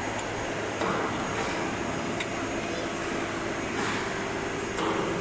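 Steady hum of an electric motor running, with a couple of short clatters from handling the machine about a second in and near the end.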